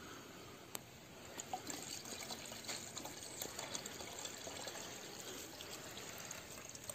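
Rambutan wine being poured through a strainer: a faint trickle of liquid with a few small clicks.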